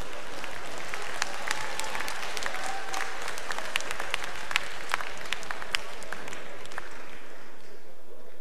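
Audience applause in a large hall: many hands clapping, building over the first second and dying away after about seven seconds.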